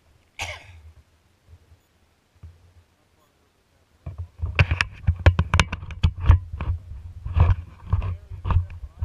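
Rapid, irregular knocks over a low rumble, picked up through the kayak's hull by the bow-mounted camera, starting about four seconds in. A short breathy burst comes about half a second in.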